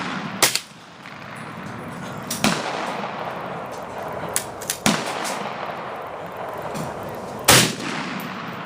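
Rifle shots: four sharp reports spaced about two to two and a half seconds apart, each trailing into an echo, with fainter distant shots between them; the loudest comes near the end.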